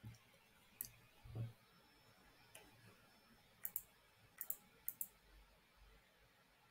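Computer mouse clicking several times in a quiet room, some clicks in quick pairs. There is a soft low thump about one and a half seconds in.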